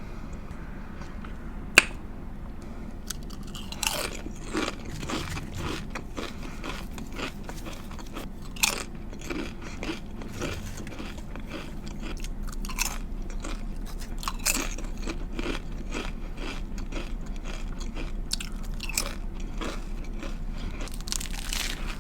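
Close-up biting and chewing of a turkey lettuce wrap with bacon and apples: irregular crisp crunches and chewing. A single sharp click comes about two seconds in, before the eating starts about four seconds in.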